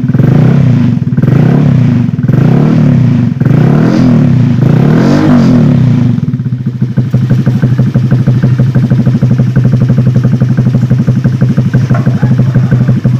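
Honda Vario 150 scooter's single-cylinder engine through a WRX aftermarket exhaust, blipped by the throttle about once a second, each rev rising and falling, then settling to a steady idle about six seconds in.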